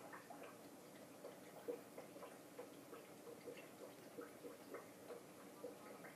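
Faint quick ticking, about three soft clicks a second, from water dripping and bubbling in a small reef aquarium's filtration.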